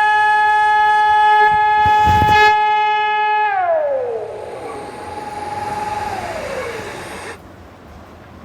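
Emergency-alert-style alarm tone, one steady horn-like pitch with strong overtones, that about three and a half seconds in drops in pitch and fades with an echo. A second falling tone comes near six seconds, and the sound cuts off about seven seconds in. A brief thump comes around two seconds in.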